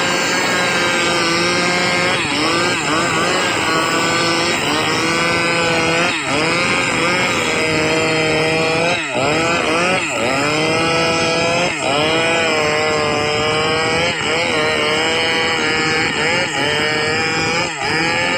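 Maestro two-stroke chainsaw running hard while cutting gmelina (white teak) wood. The engine pitch sags sharply and recovers every second or two as the chain bites into the wood under load.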